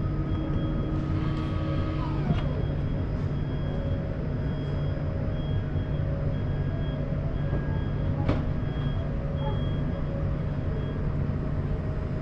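Steady low mechanical hum with faint on-off tones above it, broken by a sharp click about two seconds in and another about eight seconds in.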